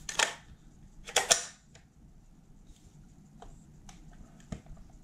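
Metal parts of an MPA Defender 9mm pistol, a MAC-11-style clone, scraping and clicking as they are slid together during reassembly. A short scrape comes first, then a louder cluster of clicks about a second in, then a few faint ticks.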